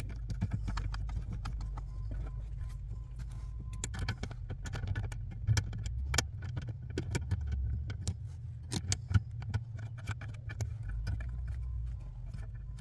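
A CB radio being fitted onto its mounting bracket by hand as its two bolts are run back in. Scattered light clicks and knocks of metal hardware and the radio's case come through, over a steady low hum.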